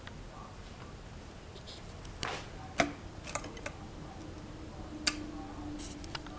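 Sharp clicks and light rustling from a gold toy tiara and party bead necklaces being handled on a plastic tablecloth, with two louder clicks. A faint steady hum runs underneath from a little before halfway.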